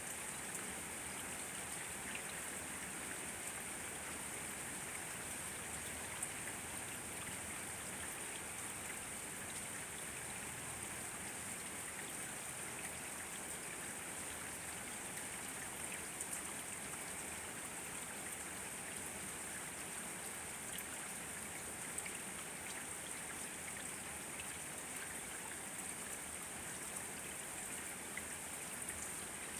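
Steady rain falling, an even patter with scattered individual drop hits.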